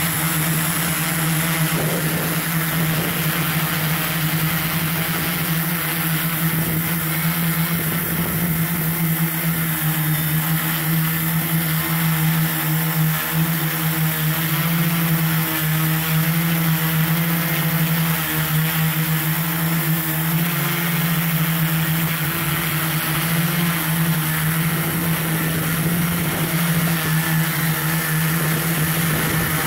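Multirotor drone's motors and propellers running steadily in flight, heard from the camera on board: an even hum with higher overtones over a strong airy hiss.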